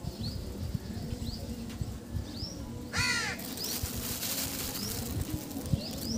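Short high chirps from a bird repeating about once a second, with one loud cry that slides down in pitch about three seconds in, and low scuffing sounds throughout.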